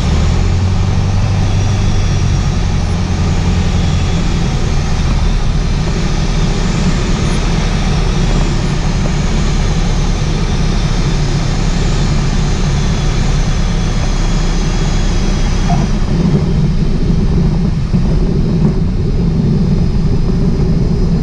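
Cockpit noise of a Piper Warrior landing: its four-cylinder Lycoming engine and propeller running at low power, with rushing air, steady and loud throughout. A low drone in the engine sound drops away about four seconds in.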